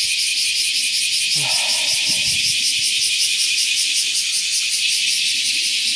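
Summer cicadas singing in a loud chorus, a dense high buzz with a rapid, even pulsing.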